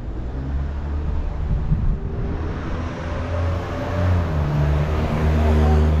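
A motor vehicle's engine running close by, with road noise, getting louder over the last few seconds.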